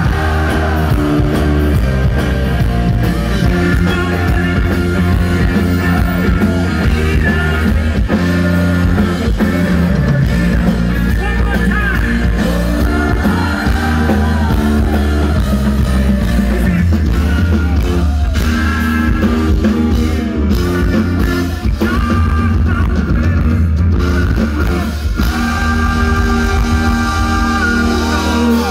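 Live band music played loud through a concert PA: a male lead singer over electric guitar and a steady bass line, in the style of yacht rock.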